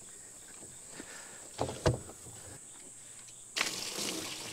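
Two sharp thumps about a second and a half in, as the heavy plastic stock tank is handled. Then, about three and a half seconds in, a sudden steady hiss of water from a pressure washer wand spraying into the empty plastic stock tank to clean it out.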